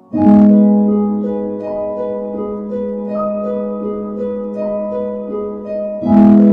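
Background music: a harp-like plucked-string melody over a held low note, starting abruptly just after the start, with a fresh strong chord near the end.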